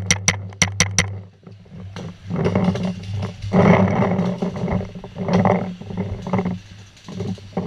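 Paintball marker, an Empire Axe, firing a quick string of about six shots in the first second. Then several seconds of loud, uneven rustling in bursts.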